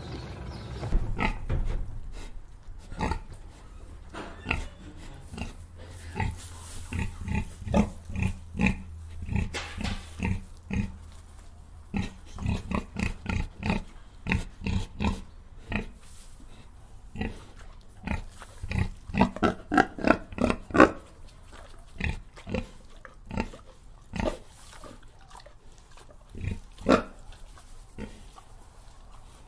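Domestic pig grunting: a long series of short grunts, with a quick run of grunts about two-thirds of the way through.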